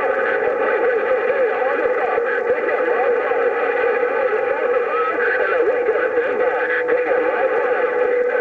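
CB radio receiver on 27.025 MHz playing a jumble of several overlapping, distorted transmissions at once: warbling, squealing voices and tones crowding the channel, with a steady whistle-like tone near the end.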